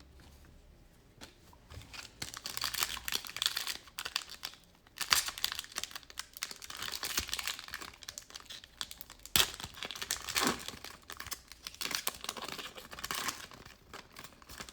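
Plastic wrapper of a Prizm trading card pack crinkling as it is torn open and handled, in irregular rustling spurts, with one sharp snap partway through.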